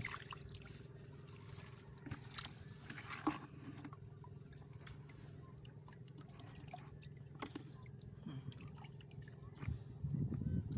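Water dripping and splashing off a wet fishing net as it is lifted, then small clicks and rustles of hands picking the catch out of the mesh, over a low steady hum.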